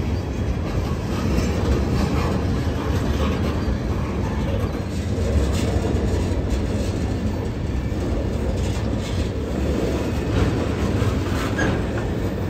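Freight train of flatcars carrying trash containers rolling past close by: a steady rumble of steel wheels on the rails, with faint clicks.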